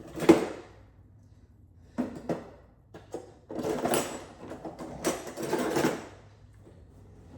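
Kitchen handling sounds during cooking: a couple of short sharp clicks and several longer clattering, rustling bursts.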